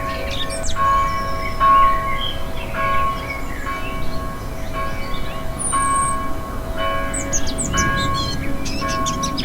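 A church bell tolling about once a second, each stroke ringing on into the next. Birds chirp and twitter over it, most busily near the end.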